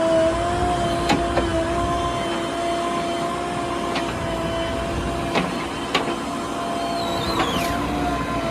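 JCB 3DX backhoe loader's diesel engine running steadily under working load, with a sustained pitched hum. Sharp knocks and clanks come now and then.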